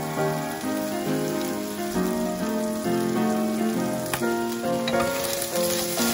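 Background music with a melody of changing notes, over the steady hiss of chicken breast pieces sizzling in hot oil in a frying pan.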